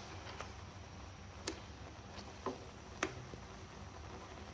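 Wooden spatula knocking against the pan while stirring spaghetti and tomatoes in boiling water: about four short irregular taps over a faint steady background.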